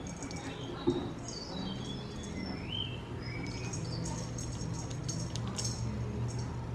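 Bird-like chirping and twittering: many short high chirps and sliding whistles, some rising and some falling, over a steady low hum, with a single soft knock about a second in.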